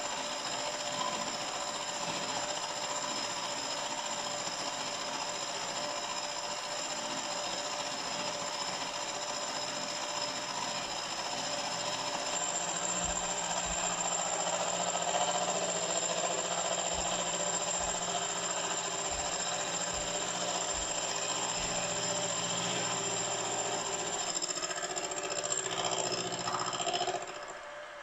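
Benchtop milling machine running, its spindle-mounted milling cutter taking a facing cut across the top of a cylinder block casting: a steady machining whir with a few steady tones that grows louder and heavier partway through, then drops away suddenly near the end.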